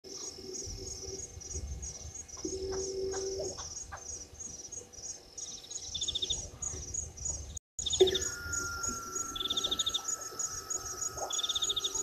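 Wild birds chirping: a high note repeated steadily about three times a second, with short rapid trills every second or two from about halfway through.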